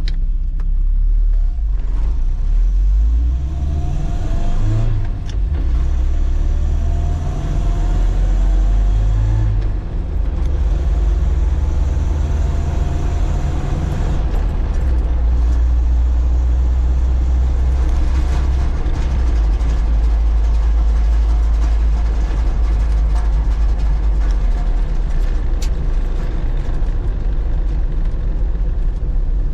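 1985 Toyota 4Runner's four-cylinder engine, heard from inside the cab while driving and pulling up through the gears. Engine pitch rises, then briefly drops at an upshift about five seconds in and again about ten seconds in, then the engine settles into a steady run.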